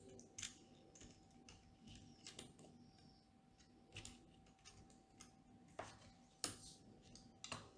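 Plastic LEGO pieces being handled and pressed together: scattered faint clicks and small rattles, about half a dozen, the loudest about six and a half seconds in.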